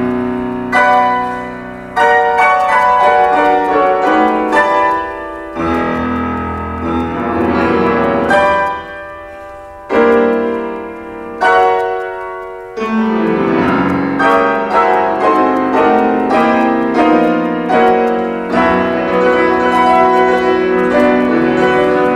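Classical piano music from a rhapsody: loud struck chords left to ring and fade, then from about halfway a busier, faster run of notes.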